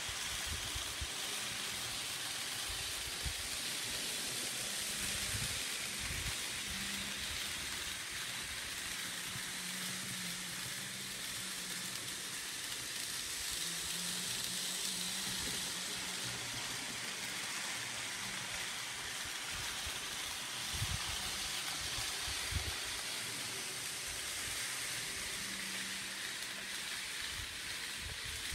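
N scale model trains running around the layout: a faint motor hum that comes and goes over a steady hiss, with two soft knocks about three-quarters of the way through.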